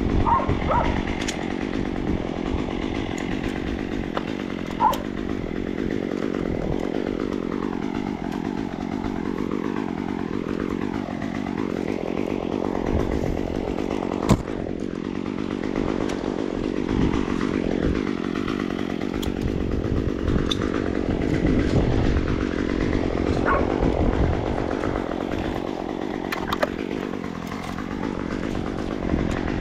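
Gas chainsaw running steadily through a tree-removal cut, its engine note dipping and rising several times. A couple of sharp knocks stand out, one about five seconds in and one about halfway through.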